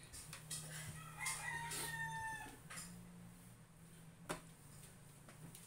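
A rooster crowing once, faintly, about a second in: one held call that falls slightly in pitch. Under it runs the steady hum of an electric fan, with a few light knocks.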